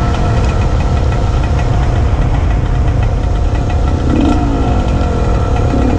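KTM SX125's two-stroke single-cylinder engine running while the bike is ridden along, the revs climbing again about four seconds in. The owner says its carburettor needs adjusting.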